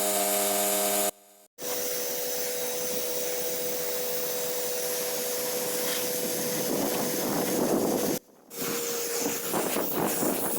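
Pressure-washing equipment running: a steady rushing spray noise with a thin steady whine, in three short clips joined by abrupt cuts about a second in and about eight seconds in; the last clip is rougher and more uneven.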